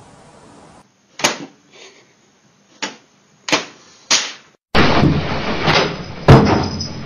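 A series of sharp knocks, a second or less apart, then a louder stretch of banging and rattling with two heavier bangs near the end.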